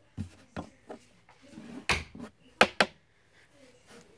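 Clothes hanger clattering against a closet rod as it is thrown up: a few light clicks, a louder knock about two seconds in, then two sharp clacks in quick succession.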